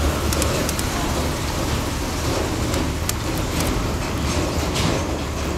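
Close mouth sounds of someone eating smoked mackerel with her fingers: scattered small wet clicks and smacks. Under them is a steady rushing background noise with a low rumble.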